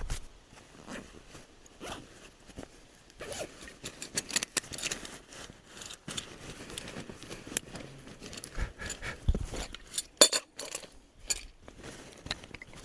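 Camping gear being handled at close range: irregular clicks, scrapes and rustles, with one sharp loud click about ten seconds in.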